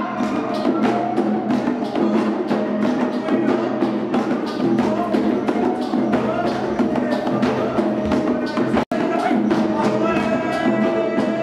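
Traditional dance music led by long wooden barrel drums beaten in a fast, steady rhythm, with a held melodic tone above the drumming. The sound cuts out for an instant about nine seconds in.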